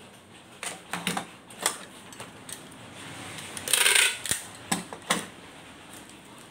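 Bubble wrap crinkling and a few light handling knocks, then packing tape pulled off a handheld tape dispenser in one loud, half-second rip about four seconds in.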